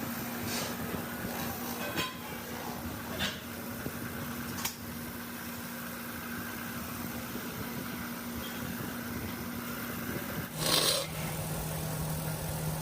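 Factory machinery running with a steady hum. A few sharp metallic clicks come in the first five seconds, and a short, loud, hiss-like burst comes about eleven seconds in, after which the hum settles at a lower pitch.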